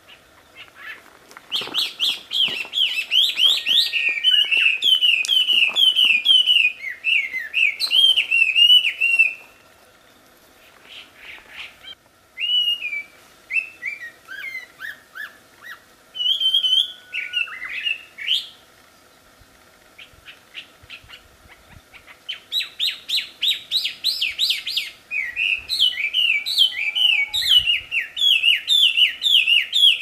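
Chinese hwamei (wambi) singing loudly: fast runs of repeated whistled notes in three long phrases, with short pauses between them.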